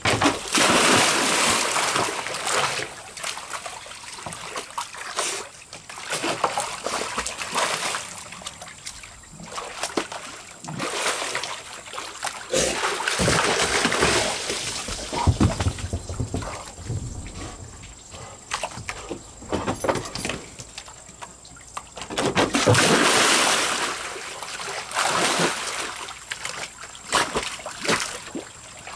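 A black dog diving and swimming in a stock-tank pool after a sunken Kong toy: water splashing and sloshing in uneven bursts. The loudest bursts come right at the start, as the toy is thrown in, a little before halfway, and about three-quarters of the way through.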